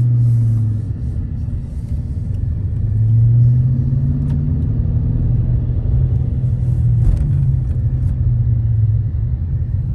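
Car engine and road noise heard from inside the cabin: a steady low drone that climbs slightly about three seconds in as the car pulls away and picks up speed.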